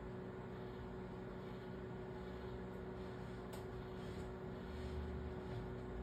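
Quiet room tone: a steady low hum and rumble, with one faint click about three and a half seconds in.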